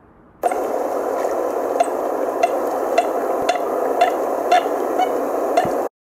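American coot sound clip: a dense, steady, water-like rustle with short sharp clicks about twice a second. It cuts off suddenly just before the end.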